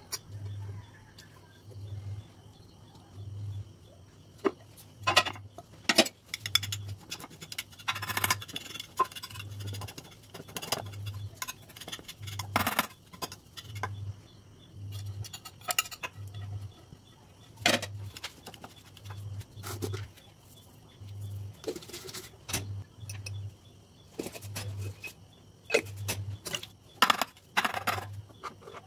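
A wire whisk clinks and scrapes against a glass baking dish as boiled potatoes are mashed, giving sharp irregular clicks. Under it a soft low thud repeats about every second and a quarter.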